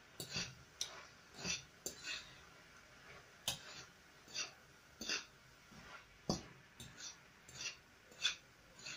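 A metal utensil stirring vegetables in a frying pan: short scrapes and clicks against the pan in an uneven run of strokes, roughly two a second.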